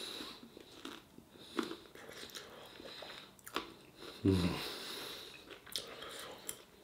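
A man chewing a mouthful of curry and sniffing and breathing hard through the nose from the chilli heat, with a few light clicks of knife and fork on the plate. A short low voiced sound from him about four seconds in.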